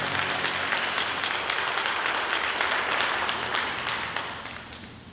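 Congregation applauding after a song, a dense patter of hand claps that dies away about four and a half seconds in.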